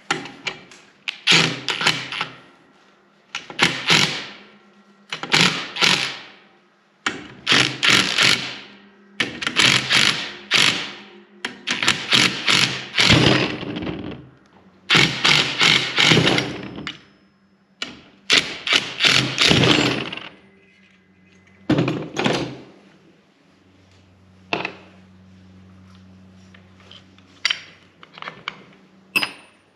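Metal clanks and knocks from tractor clutch parts being taken apart, coming every second or two with a short ring after each, and a quieter stretch about two thirds of the way through.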